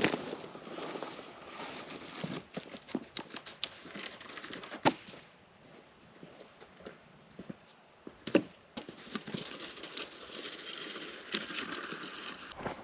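Dry twigs and leaf litter rustling and snapping as firewood is gathered: bouts of rustling with irregular sharp cracks, the sharpest about five seconds in and eight seconds in.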